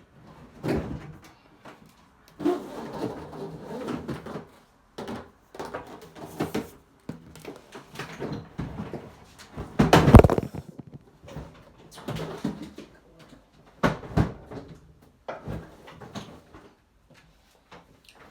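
Irregular knocks, bumps and scraping as a mini washing machine is handled and moved out of a tub, with a heavy thump about ten seconds in and another a few seconds later.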